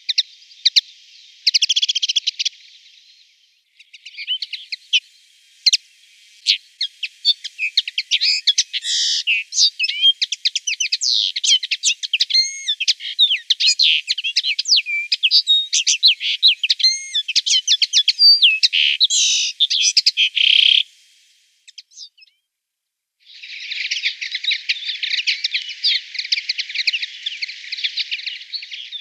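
Common linnet singing: a long, fast, varied twittering song of quick chirps and trills, breaking off briefly past the middle, then resuming as a dense, unbroken twitter.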